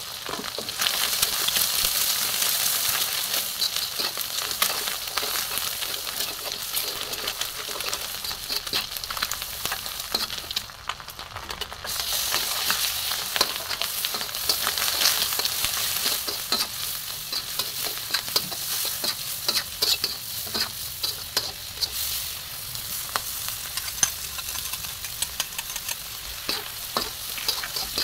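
Pork and egg stir-frying in hot oil in a steel wok: a steady sizzle, with the metal spatula scraping and clicking against the wok. The sizzle dips briefly about ten seconds in, then comes back louder.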